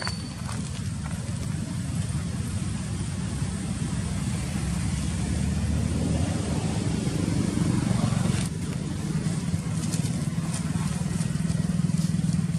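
Road traffic with motorbikes passing: a low steady engine rumble that swells and then drops off sharply about eight seconds in.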